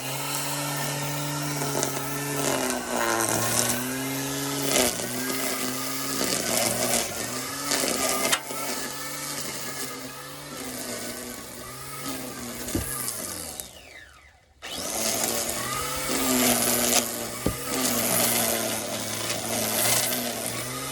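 Electric string trimmer used as an edger, its motor running with the pitch dipping and recovering as it cuts. Roughly two-thirds of the way through it winds down and cuts out for a moment, then starts up again.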